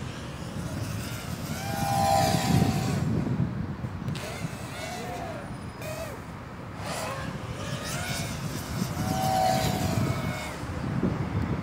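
FPV quadcopter's motors whining, the pitch rising and falling as the throttle changes, loudest twice as the drone swoops past, over a low rumble of wind on the microphone.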